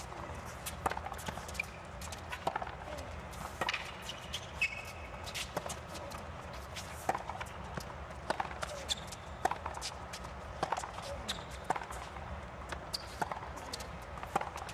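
Tennis rally on a hard court: the ball struck by racquets and bouncing on the court in an irregular run of sharp knocks, about one every half second to second, with a few short squeaks over a hushed crowd's low hum.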